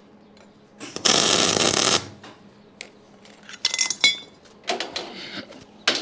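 A welding arc tacking 6 mm steel plate for about a second, with the welder turned up to its maximum output. Then a few sharp metallic clinks and knocks.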